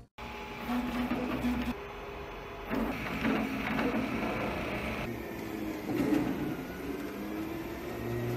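FDM 3D printer running, its stepper motors whining as the print head moves, the pitch stepping and gliding up and down as the moves change speed.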